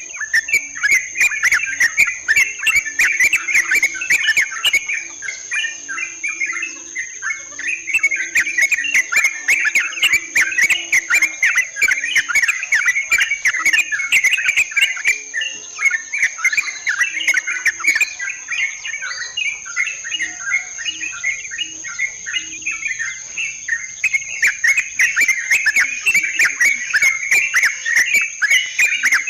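Yellow-vented bulbuls (trucukan) chattering, with many bubbling notes overlapping and only brief lulls, over a steady high insect buzz. It is a looped lure recording used to call the birds in for trapping.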